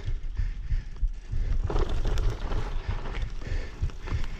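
Bicycle riding over a bumpy dirt trail: a low rumble from wind on the microphone, with irregular thumps and rattles from the bike jolting over the ground.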